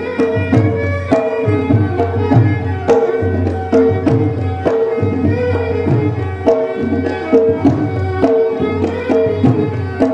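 Music: a steady drum beat of about two strikes a second under a held, repeating melody.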